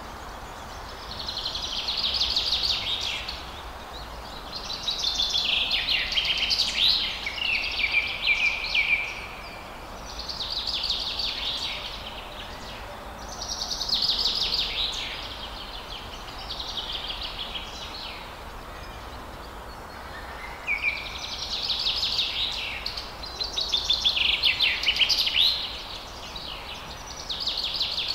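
Songbirds singing in high-pitched trilled phrases a couple of seconds long, one after another every few seconds, over a steady background hiss.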